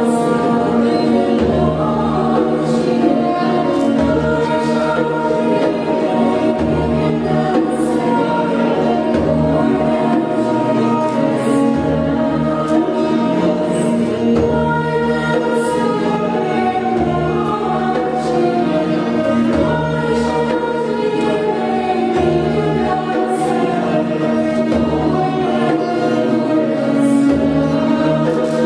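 A choir sings a slow melody with orchestral accompaniment of strings and percussion over a steady held drone, with occasional light percussion strikes.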